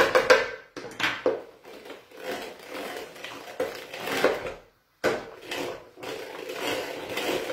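Hand-cranked metal food mill turning, its blade scraping and grinding boiled potatoes through the perforated disc in rough repeated strokes. There is a brief break a little under two-thirds of the way through.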